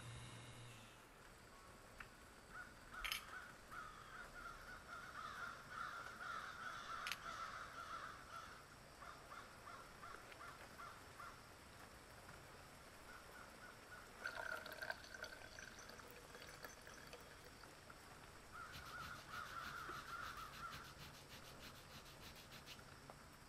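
Faint bird calls in three bouts, the first and longest starting about two and a half seconds in, over low background noise.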